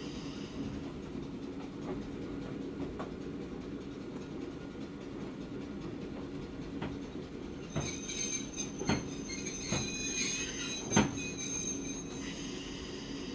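Hakone Tozan Railway Moha 1 electric car running, its nose-suspended traction motors and wheels giving a steady low hum. About eight seconds in, a high wheel squeal from the flanges on a curve sets in for about four seconds, with a few sharp knocks over rail joints; the loudest knock comes near the end of the squeal.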